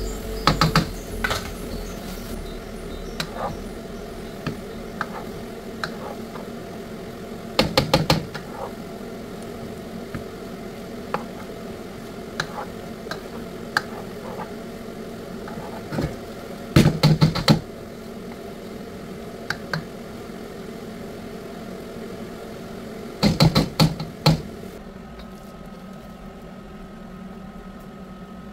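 A plastic spatula stirs and tosses eddoes in a steel wok, with four short bursts of rapid knocks and scrapes against the pan and scattered single taps, over a steady background hum.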